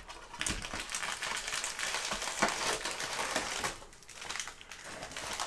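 Crinkling and rustling of plastic-wrapped trading-card packs being handled, with many small clicks and taps. It is busiest for the first three or four seconds, eases briefly, then picks up again near the end.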